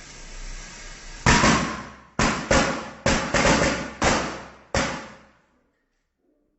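Firecrackers going off: about seven sharp bangs at uneven intervals, starting about a second in and spread over three and a half seconds, each ringing out briefly. Over a steady hiss beforehand.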